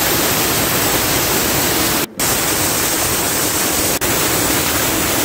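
Butterfly stainless-steel pressure cooker venting steam through its weighted whistle valve: a loud, steady hiss, with a brief break about two seconds in. It is one of the whistles counted to time the cooking under pressure.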